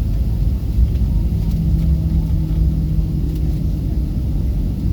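Steady low rumble inside a Boeing 737 jet's cabin during the landing roll, engines and wheels on the runway, with a steady hum that comes in about a second in and fades out near the end.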